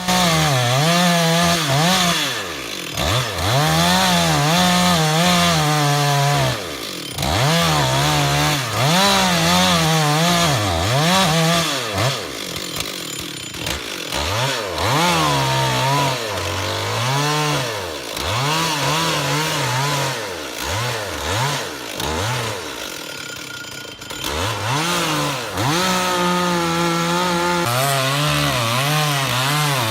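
Two-stroke gasoline chainsaw cutting through a tree trunk, the engine pitch sagging under load as the chain bites into the wood and climbing back again, over and over. It eases off briefly a few times between cuts.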